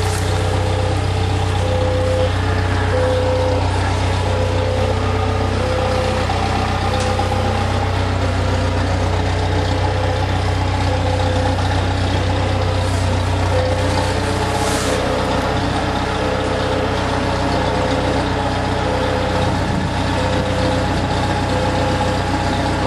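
Diesel engine of a boatyard travel hoist running steadily with a low hum, with its warning beeper sounding about once a second as it moves with a yacht in its slings.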